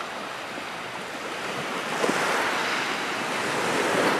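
Sea surf breaking on a beach: a steady wash of waves, surging louder about two seconds in and again near the end.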